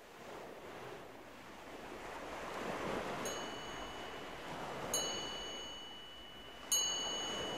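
Opening of a soft background music track: a hushed, swelling whoosh like surf, with three bell-like chime strikes that each ring on with a clear high tone, the first faint about three seconds in, the others about five and nearly seven seconds in.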